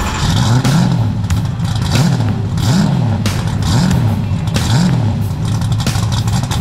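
Car engine being revved in repeated blips, about one a second, its pitch rising and falling each time over a steady idle.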